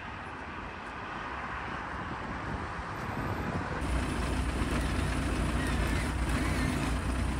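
Steady road traffic noise. From about four seconds in, a flatbed tow truck's engine idles close by, a steady low hum.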